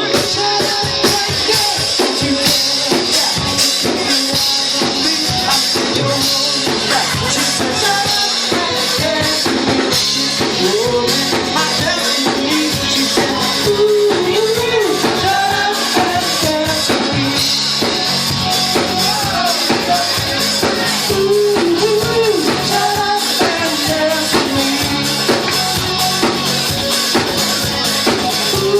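Live band playing an upbeat rock-pop song, with a drum kit keeping a steady, driving beat under a wavering melody line.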